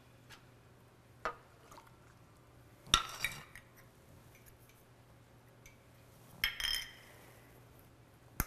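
Small plastic measuring cups and a spatula clinking against a ceramic mixing bowl and being set down on a stone countertop as ingredients go in. Three sharp clinks, the loudest about three seconds in, with quiet between.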